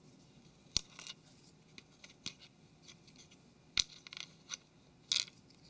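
Close handling of small plastic phone parts and a tube of adhesive: two sharp clicks, about a second in and near four seconds, with lighter ticks between and a short scratchy rustle near the end.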